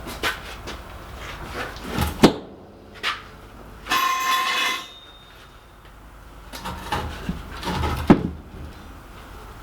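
Irregular knocks and clunks from heavy workshop gear being handled while the anvil is raised and moved onto its stump. The loudest knocks come a little after two seconds and again near eight seconds, with a brief squeak about four seconds in.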